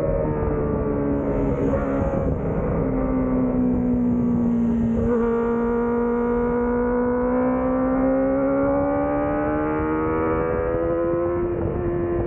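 Kawasaki ZX-25R race bike's 250 cc inline-four engine, heard from the bike's own onboard camera. Its pitch falls over the first few seconds, gives a brief blip about five seconds in, then climbs steadily as the bike accelerates. A steady rush of wind noise runs underneath.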